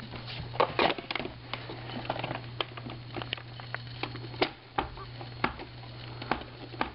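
Irregular plastic clicks and taps from a Roomba robot vacuum's brushes and brush housing being handled, taken out and cleaned, over a low steady hum.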